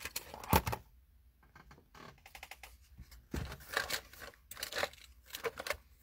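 Rummaging through a drawer of craft supplies while searching for adhesive: scattered sharp clicks and knocks of items being moved, with light rustling of paper. There is one loud knock about half a second in, and a cluster of knocks near the end.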